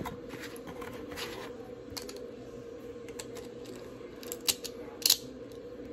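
Small plastic clicks and snaps of a Beyblade spinning top's parts being handled and fitted together: a handful of scattered clicks, the two loudest about four and a half and five seconds in, over a steady hum.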